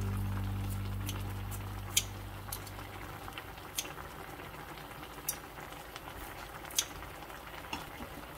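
Kimchi stew with pork neck simmering and bubbling in a frying pan, with about six sharp metallic clicks from kitchen scissors snipping the meat and tongs holding it, the loudest about two seconds in. Background music fades out over the first few seconds.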